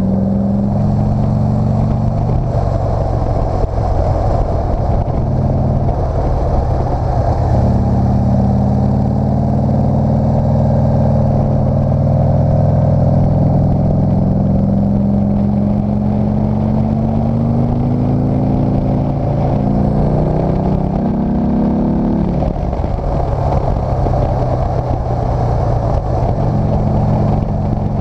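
Motorcycle engine pulling up a mountain road, its pitch climbing and dropping back several times through the gears, about four seconds in, near eight seconds and again near twenty-two seconds, over a steady rush of wind noise.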